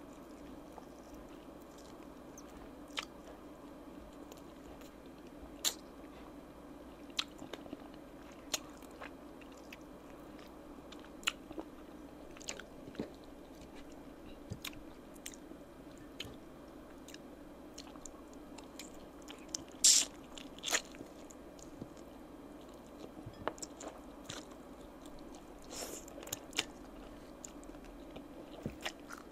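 Close-miked chewing and biting of oven-roasted chicken wings: wet mouth sounds broken by many short, sharp clicks and crackles, with the loudest bursts about twenty seconds in and again near the end.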